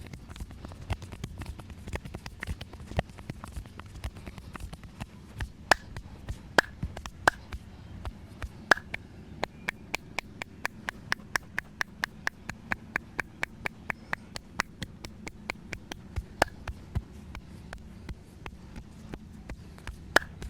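Hands striking a person's head and back in a massage: sharp slaps and chops, with a few louder ones, and in the middle a fast, even run of about four strikes a second.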